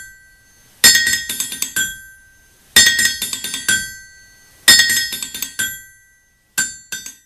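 Percussive theme music of ringing, anvil-like metal strikes: four quick runs of hammered notes on two ringing pitches, one run starting about every two seconds, the last one shorter.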